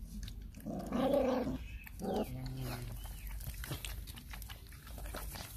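A dog vocalizing: a drawn-out pitched call about a second in, the loudest sound, then a shorter one just after two seconds. Small clicks of puppies eating from a plastic feeding bowl follow.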